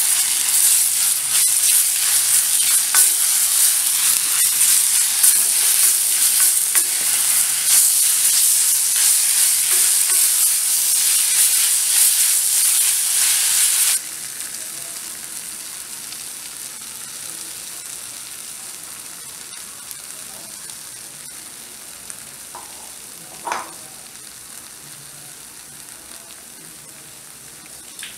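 Onions and tomatoes sizzling in oil in a metal kadai as a flat spatula stirs and scrapes them. About halfway through, the loud sizzle stops abruptly, leaving a much fainter hiss with a single click near the end.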